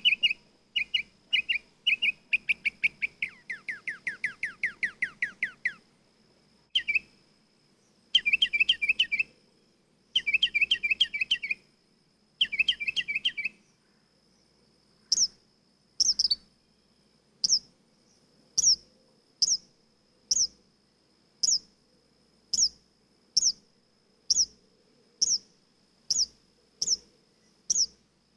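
Nightingale singing: phrases of repeated chirping notes and a fast falling trill, then short bursts of rapid notes, and from about halfway on a run of single sharp high notes about one a second. A faint steady high tone runs beneath the song.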